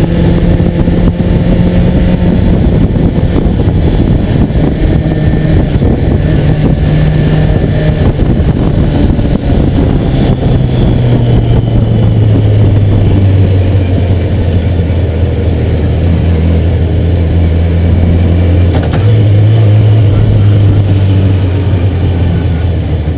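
Motorcycle engine running while ridden slowly through town streets. Its note steps down about ten seconds in and goes back up near the end, as the speed changes.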